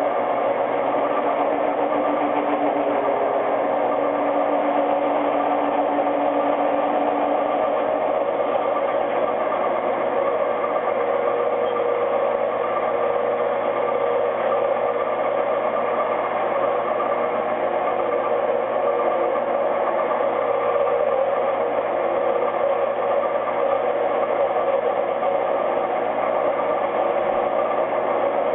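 MicroMark 7x14 mini lathe running under a steady cut, a freshly ground high-speed-steel tool turning a radius in aluminum stock. The motor and gearing give a steady whine over the cutting noise, and a lower hum drops out about eight seconds in. The cut shows a little chatter but sounds good overall.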